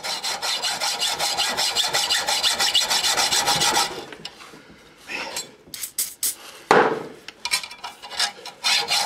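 Hacksaw cutting through a threaded bolt in quick, even strokes. About four seconds in the sawing stops for a few scattered knocks and clatters, then resumes near the end.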